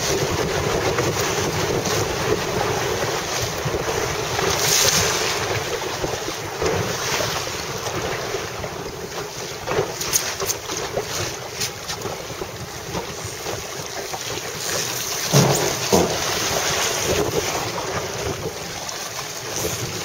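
Wind blowing across the microphone over choppy open water, a steady rushing noise. About three-quarters of the way through come two short knocks, half a second apart.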